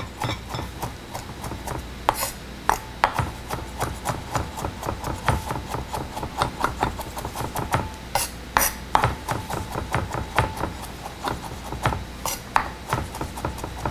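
Chef's knife chopping fresh parsley and oregano on a wooden cutting board: a run of irregular knocks of the blade against the board, a few a second.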